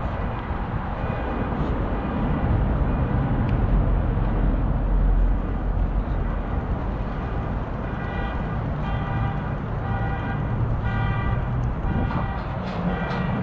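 City street traffic: a steady low rumble of passing vehicles that swells around the middle. In the second half come a series of short, steady-pitched tones, repeated several times.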